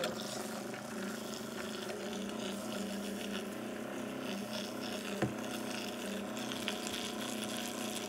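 Small electric motor of a mini beauty-blender washing machine running with a steady low hum, while a soapy makeup sponge is squeezed out by hand with wet squishing. A single sharp click about five seconds in.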